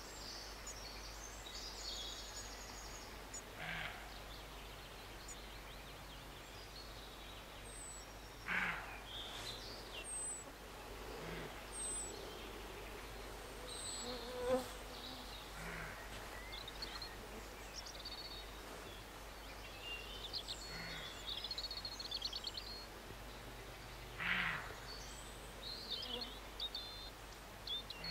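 Roe deer barking: six short, hoarse barks a few seconds apart, the loudest about a third of the way in and near the end. Birds chirp faintly in the background.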